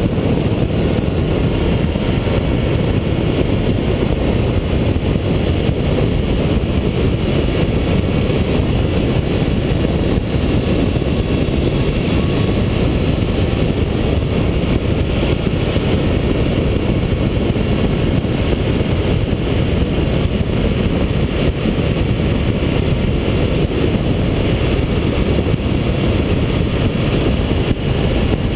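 Honda ST1300 motorcycle at cruising speed: a steady, low rumble of wind on the bike-mounted camera, mixed with engine and road noise.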